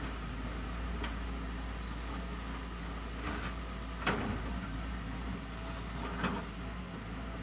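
Doosan DX140W wheeled excavator at work: its diesel engine runs with a steady low hum. Four brief mechanical sounds from the working machine rise over it, the loudest about four seconds in.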